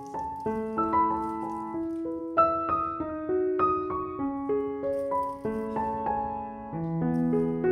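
Background music: a soft, unhurried solo piano melody, notes struck one after another with lower notes joining near the end.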